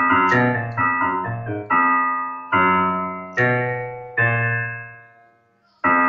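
Background piano music: a run of quick notes, then a string of chords struck about once a second, the last one fading almost to silence before a new chord just before the end.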